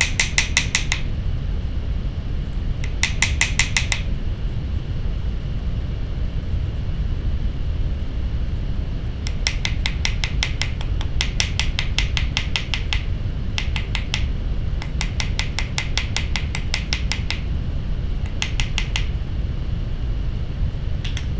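Small riveting hammer tapping a copper tube rivet on a steel bench block, in quick runs of light, ringing metal-on-metal taps, setting and spreading the rivet head. The runs come at the start, a few seconds in, and then several longer runs in the second half.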